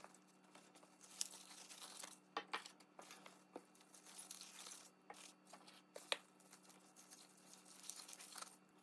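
Faint rustling and crinkling of gloved hands handling seasoned scallions in a stainless steel bowl, with scattered small ticks, the sharpest about a second in and about six seconds in. A low steady hum runs underneath.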